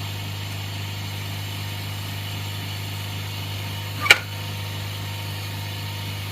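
Vacuum pump of an LCD separation machine running with a steady low hum. One sharp click about four seconds in.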